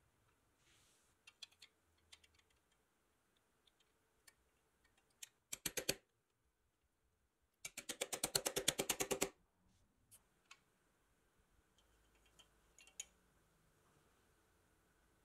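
Rapid metallic clicking from the restored pressed-steel toy biplane's moving parts: a short run of clicks a little past five seconds in, then a louder, evenly spaced run of about a dozen clicks a second for a second and a half. Light scattered taps of handling the toy come before and after.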